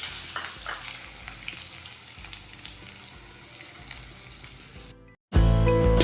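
Chopped onion frying in hot oil with cumin and mustard seeds, a steady sizzle with a few light stirring clicks. About five seconds in it cuts out and louder background music begins.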